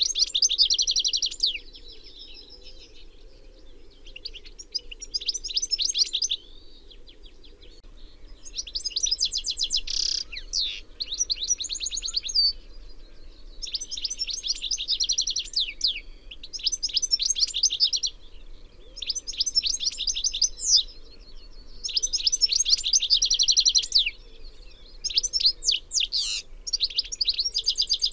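European goldfinch (Carduelis carduelis) singing: about nine phrases of quick, high, rapid notes, each a couple of seconds long, with short pauses between. A faint steady low hum lies under the song.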